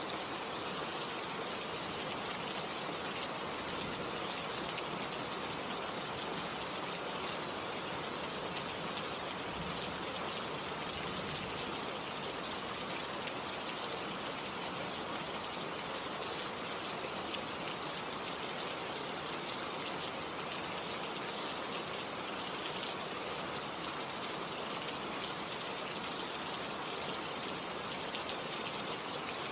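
Steady rain falling, a dense even hiss of drops with fine patter, unchanging throughout.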